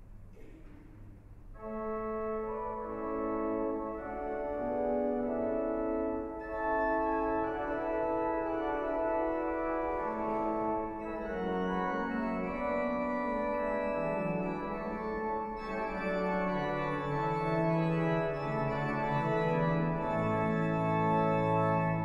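The swell principal chorus of the 1912 Harrison & Harrison pipe organ plays sustained chords, starting about a second and a half in. Brighter, higher ranks join at about six seconds and again at about fifteen seconds, as the chorus builds up to the mixture.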